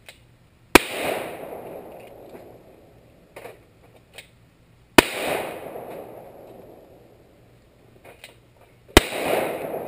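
Three shots from a six-shot Ruger revolver in .38 Special, fired from quick draws about four seconds apart. Each is a single sharp crack followed by an echo that dies away over a second or two.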